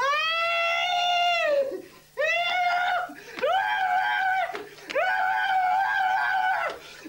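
A nonverbal autistic young man screaming in distress: four long, high-pitched cries with short breaks for breath between them. Each cry jumps up sharply and is then held at one pitch.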